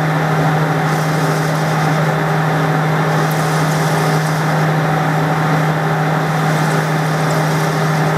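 Metal lathe running steadily while its insert cutting tool turns the face of a spinning metal part: a constant low hum with an even machining noise over it.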